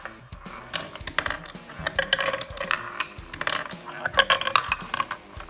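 Steel ball bearings clicking and rattling through a small wooden tabletop skee-ball game, many quick sharp clicks and clatters, over background music.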